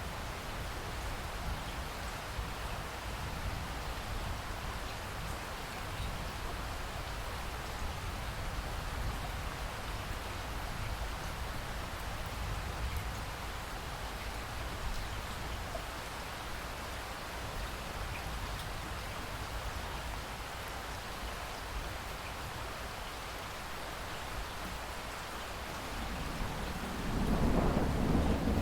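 Steady rain falling, with a low rumble underneath. Near the end a roll of thunder builds and grows louder.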